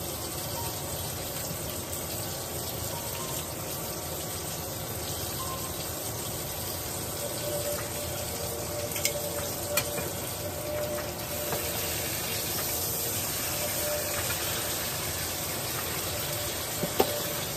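Ribeye steak sizzling steadily as it fries in a hot stainless steel pan. A few sharp clicks of metal utensils come about nine and ten seconds in and again near the end.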